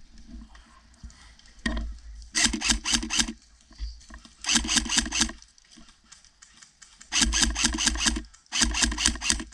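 Airsoft rifle firing four bursts of rapid shots, each a fast, even string of sharp cracks, with one single shot just before the first burst.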